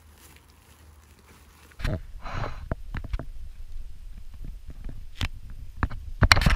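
Crinkling and crackling of the cling-film skin of a homemade PVC-pipe kayak, with scattered knocks, as reeds brush the hull. It starts suddenly about two seconds in, and the loudest, densest rustling comes near the end.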